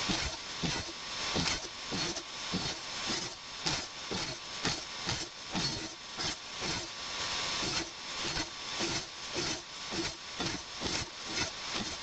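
A table saw with a dado stack runs and cuts small wood pieces one after another, the sound surging with each cut about two to three times a second.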